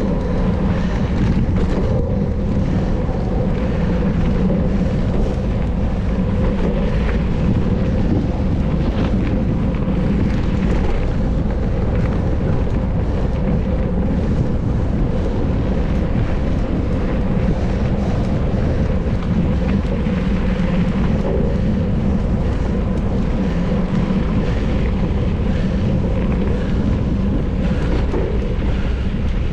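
Wind rushing over an onboard camera's microphone, together with the tyre and drivetrain noise of a mountain bike ridden at race speed: a loud, steady rumble.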